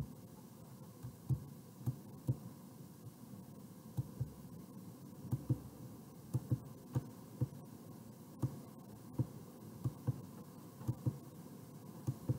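Stylus writing on a touchscreen: soft, short low taps and knocks at irregular intervals, roughly one or two a second, over a faint steady hum.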